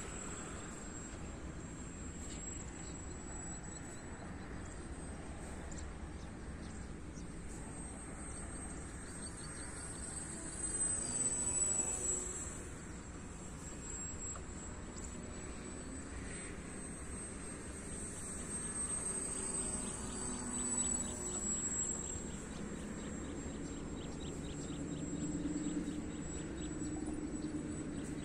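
Electric motor and propeller of a 3D-printed radio-controlled model plane flying at a distance: a thin, steady, high whine that wavers slowly in pitch and swells as the plane passes about 11 seconds in.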